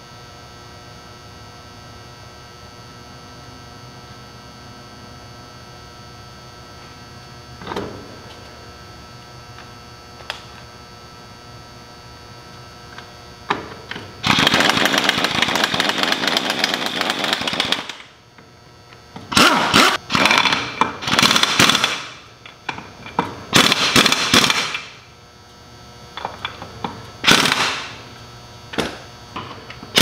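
Impact wrench run on a tractor wheel's lug nuts: one continuous run of about three and a half seconds about halfway through, then a string of short bursts, with a few faint clicks before.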